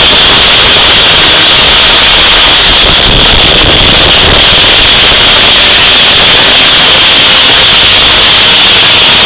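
Deliberately overdriven explosion sound: a continuous, heavily clipped roar of noise at full volume, with a harsh hiss high up and no let-up.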